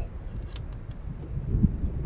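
Wind buffeting the camera microphone: an uneven low rumble, with a brief thump about one and a half seconds in.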